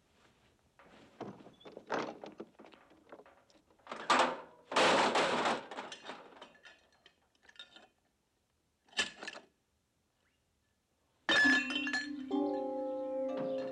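Metal car parts and tools clanking and knocking on an old wrecked car, with a louder clattering crash about five seconds in and a single clank a few seconds later. Music with held chords comes in near the end.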